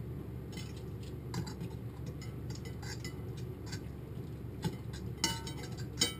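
A metal utensil clicking and scraping against a skillet as pulled meat is stirred together with barbecue sauce, with a few louder ringing clinks near the end.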